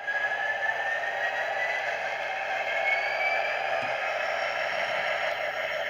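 Model diesel locomotive running on three-rail model train track: a steady clatter and rumble of wheels on the rails, with a thin motor whine that rises slowly in pitch over the first three seconds or so.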